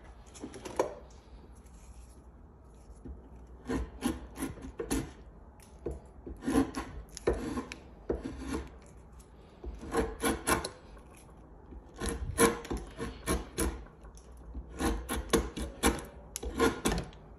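Drawknife shaving a wooden spindle end into a tapered tenon: quick pulls in bunches of several strokes, with short pauses between the bunches.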